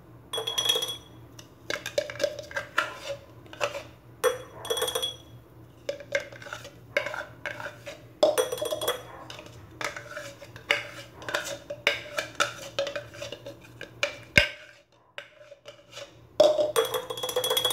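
A spoon scraping and knocking against a plastic blender cup and a glass jar while blended garlic paste is spooned out. The scrapes and clinks are irregular, and a few of them ring briefly.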